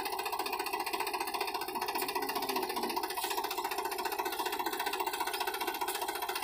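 Sonalika DI 35 tractor's diesel engine running steadily under load with a fast, even firing beat as it strains to haul a sand-laden trolley up a soft sand slope. Background music plays along.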